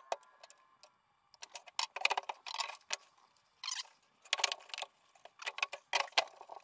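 Loose metal hardware, such as lag bolts and vise parts, clinking and rattling as it is handled, in several irregular clusters of sharp clicks.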